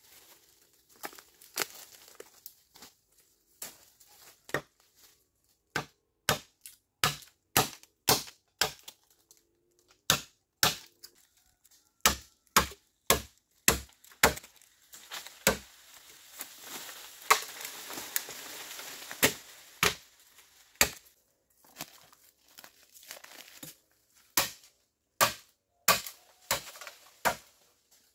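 Bamboo being chopped with a blade: repeated sharp strokes at an irregular pace of about one or two a second. A stretch of softer continuous noise comes midway.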